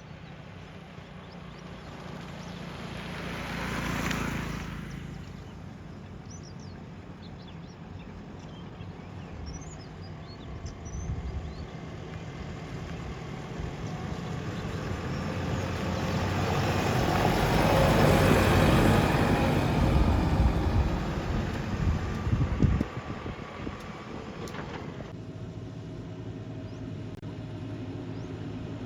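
Heavy diesel engine running steadily, swelling briefly about four seconds in and then growing much louder for several seconds around the middle before easing off. There is a sharp knock near the end of the loud stretch.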